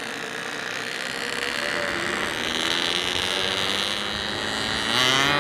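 Yamaha RX-King's single-cylinder two-stroke engine running under way, rising in pitch near the end as it accelerates.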